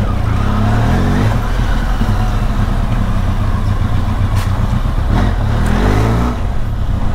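Benelli TRK502X's 500 cc parallel-twin engine running at low speed as the motorcycle is ridden slowly. The engine note rises and falls about a second in and again near six seconds.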